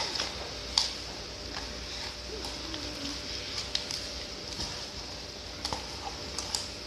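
Slime being worked by hand or with a stirrer, giving scattered soft clicks and squishes, roughly one a second, over a steady hiss.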